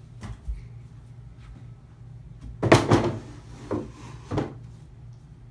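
Wooden doll bed set down on top of a wooden dresser: a few light knocks, then a clatter of knocks about three seconds in, with two lighter knocks after.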